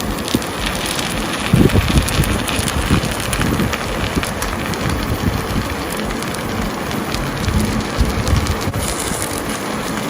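Chicken drumsticks frying in hot oil with browned onions in a pan: a steady sizzle with crackling, and a few low knocks.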